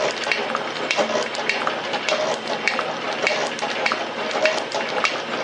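Rhodes metal shaper running, its ram stroking back and forth as the cutting tool planes the side of a cast steam chest: a steady rhythmic mechanical clatter with short squeaks that repeat about twice a second.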